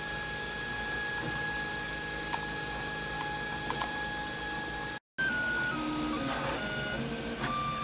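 3D printer's stepper motors whining in steady tones with a few faint ticks. After a brief dropout about five seconds in, the whine steps rapidly between different pitches as the print head changes moves.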